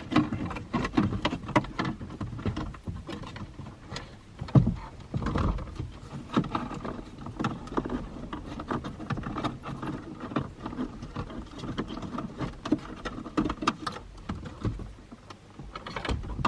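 Wires and plastic connectors rustling and clicking as they are pushed down into a car dashboard's radio opening, with a louder knock about four and a half seconds in.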